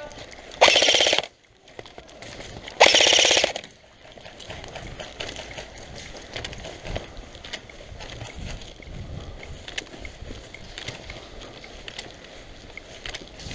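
Airsoft rifle firing two short full-auto bursts, a fast even clatter, the first about half a second in and the second about three seconds in. After that, only faint scuffing and rustling as the player moves.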